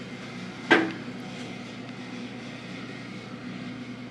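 Steady low mechanical hum, with one sharp knock a little under a second in.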